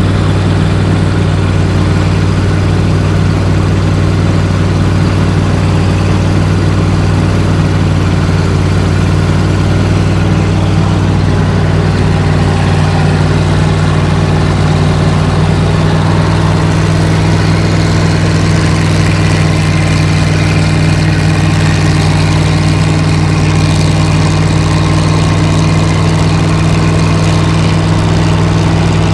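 Large farm machine's engine running steadily at constant speed, with a deep even hum and a slight rise in pitch about halfway through.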